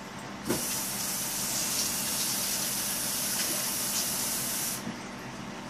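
Aerosol spray can hissing steadily for about four seconds, starting just after a small click and cutting off sharply.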